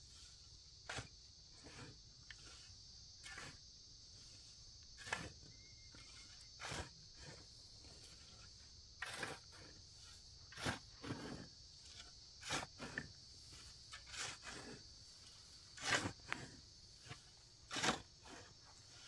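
A shovel scraping and digging into dry earth and straw, turning the heap in short, irregular strokes every second or two, the loudest near the end.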